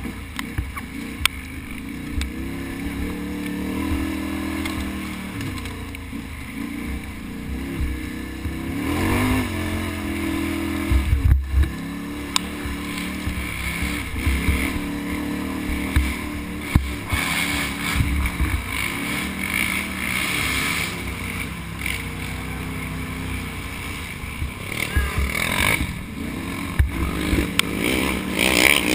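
Can-Am Outlander XXC ATV engine running hard on a race trail, its pitch rising and falling with the throttle, with sharp knocks now and then.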